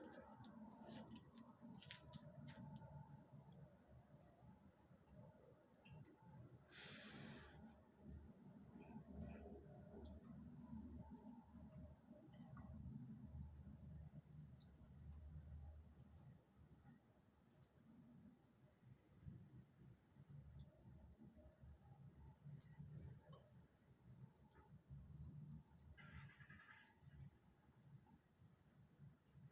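A cricket chirping in a continuous, fast-pulsing high trill, over a faint low rumble. A brief rustling noise comes about seven seconds in.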